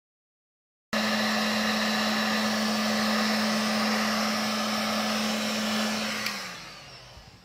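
Handheld heat gun blowing hot air onto a laptop GPU to reflow its solder: a steady rush of air with a motor hum, starting suddenly about a second in. About six seconds in the gun is switched off and the hum falls in pitch as the motor winds down and the air noise fades.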